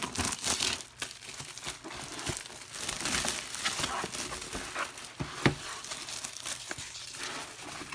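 Keyboard packaging being peeled open by hand: continuous crinkling and tearing with scattered small crackles, and one sharper snap about five and a half seconds in.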